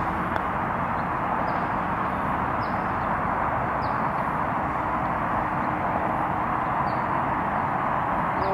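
Steady outdoor background noise, with a small bird's short high chirps several times.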